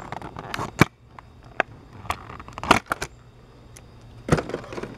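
Stiff clear plastic blister packaging crackling and clicking in the hands as a small carded toy car is pulled out of it: a handful of separate sharp clicks and crinkles.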